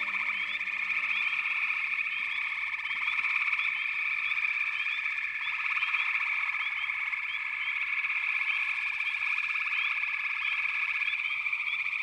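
Dense chorus of many frogs calling at once: a steady, fast-pulsing trill with many short rising chirps scattered above it.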